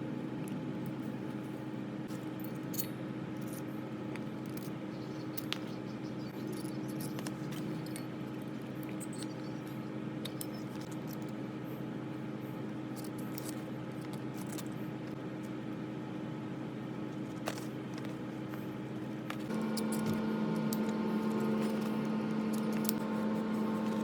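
Small electric motor of a Sherline-built Craftsman micro lathe running steadily with its spindle turning, a steady hum with a few light clicks. About three quarters of the way through it steps up in loudness and pitch, as if the speed were turned up.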